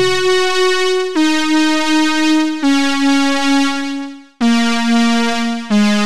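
Music: a synthesizer lead plays a slow descending melody, five sustained notes each lower than the last, with a short gap before the fourth note.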